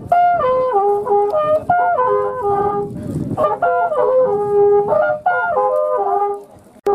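Music: a high, clear melody in short phrases, each stepping down in pitch from high to low, repeated several times, with a short break near the end.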